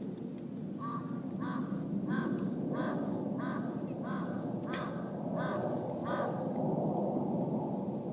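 A kitten mewing over and over: about nine short cries, each rising and falling in pitch, coming roughly every two-thirds of a second, over a steady low rumble.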